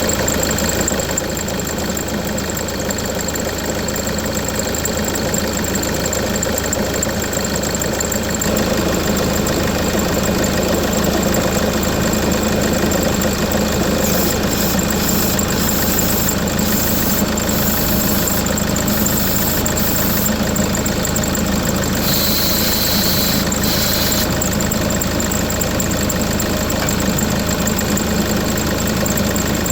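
Ford Mondeo Mk4 2.0 TDCi four-cylinder diesel engine idling steadily, with the noise of a bad tensioner. Patches of high hiss come and go through the middle.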